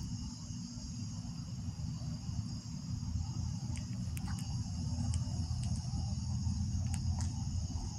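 Crickets chirping in a steady, high-pitched chorus over a low background rumble, with a few faint ticks scattered through.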